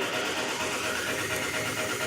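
An engine running steadily, with no beat under it.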